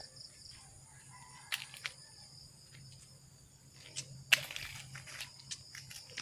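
Steady high buzzing of insects with a few short rustles and scuffs, the loudest about four seconds in.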